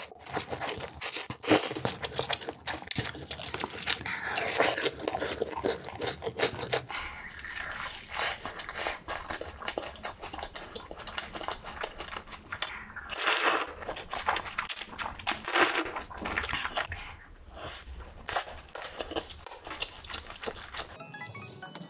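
Close-miked eating: crunchy bites into fried food and wet chewing, with noodles slurped near the start, in irregular bursts of crackling clicks.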